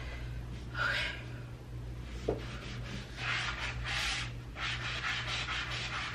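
Melamine foam eraser (Mr. Clean Magic Eraser) scrubbing marks off a painted wall in stretches of back-and-forth rubbing, with one short squeak a little over two seconds in. A steady low hum sits underneath.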